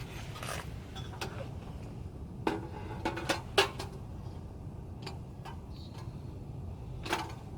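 Sharp clicks and clinks from a camping heater being handled and started, with a cluster of several clicks a few seconds in, over a steady low rumble.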